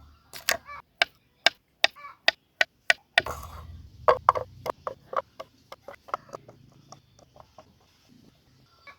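A quick series of sharp strikes, about two to three a second, thinning out after about six seconds.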